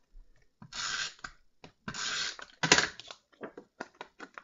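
Handheld adhesive runner drawn across the back of a cardstock layer in three short strokes, then a few light taps and paper rustles as the layer is handled and set down.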